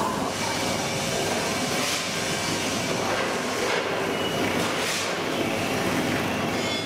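Steady mechanical din of foundry machinery: a continuous rushing noise with a faint hum underneath and a few small swells.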